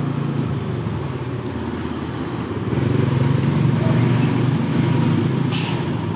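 Large bus's diesel engine running with a steady low hum that grows louder about halfway through, with a short hiss of air near the end.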